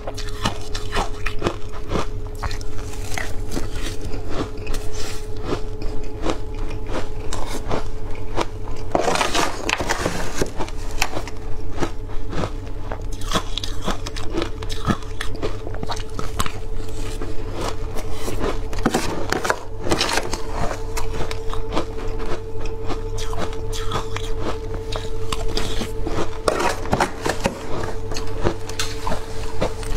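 Shaved ice being bitten and chewed close to a clip-on microphone: a dense, irregular crunching and crackling that goes on with every mouthful, with a few busier patches of crunching. A metal spoon scrapes the plastic tub now and then as she scoops more ice.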